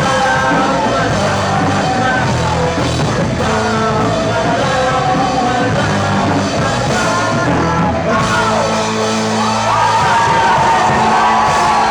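Rock band playing live, with a singer's voice carrying the melody over the band.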